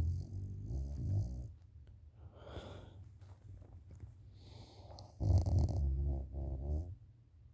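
A woman snoring in deep sleep, face-down in a pillow. A loud rattling snore fades out about a second and a half in, a softer breath follows, and a second loud rattling snore comes about five seconds in.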